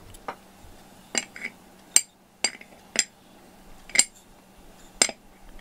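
A spoon clinking against small ceramic dishes, about eight sharp taps spaced half a second to a second apart, while crushed medicine powder is worked into lickable cat treat paste.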